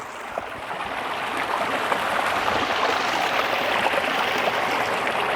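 Steady rush of flowing water from a waterfall-fed stream, growing louder over the first couple of seconds and then holding steady.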